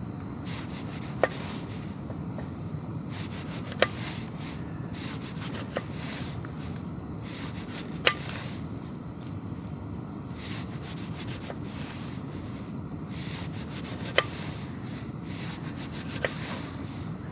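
Kitchen knife slicing a tomato on a wooden cutting board, the blade tapping the board sharply at the end of each cut: about six taps, irregularly spaced, over steady low background noise.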